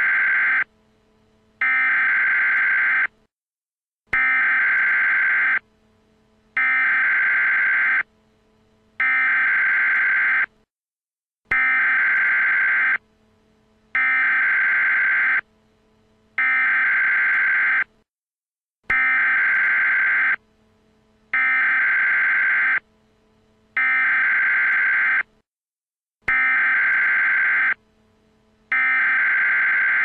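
Electronic emergency alert tone beeping: long, high beeps about a second and a half each in groups of three, each group opening with a faint click, the groups repeating about every seven and a half seconds.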